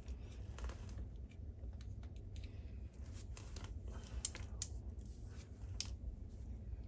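Plastic parts of a cordless vacuum's roller head being handled and fitted together: scattered small clicks and short scrapes, over a low steady hum.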